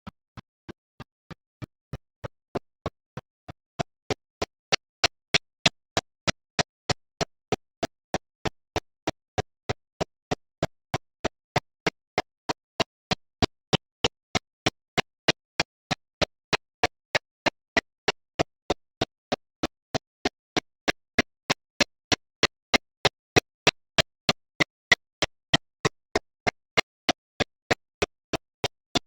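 Steady mechanical-sounding ticking, about three sharp ticks a second with silence between them, growing louder about four seconds in.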